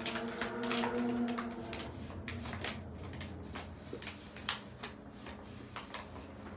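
Brown paper bag crinkling and rustling as it is folded and rolled shut by hand, in irregular papery crackles.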